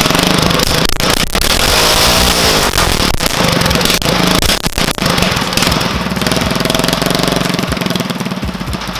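Small single-cylinder go-kart engine, freshly rebuilt with its governor removed, running loud. It is revved up and falls back twice, about two seconds in and again about six seconds in.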